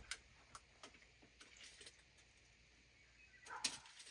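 Near silence with faint scattered clicks and light knocks, and a small clatter about three and a half seconds in, as the head of a Wood-Mizer LT15 portable band sawmill is handled by hand with its engine not running.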